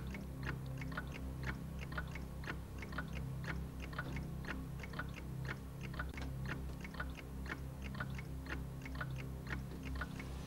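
Dramatic background music: a fast, even ticking beat, about four ticks a second, over a low steady drone.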